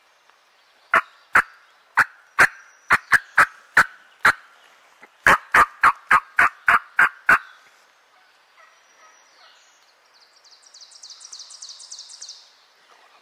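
Loud turkey yelps and cutting: an uneven run of sharp notes starting about a second in, then a faster, evenly spaced run of about eight notes. Near the end comes a fainter, high, fast trill.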